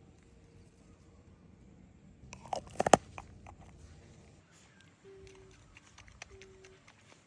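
A quick cluster of sharp crunching cracks about two and a half seconds in, followed later by two short low tones.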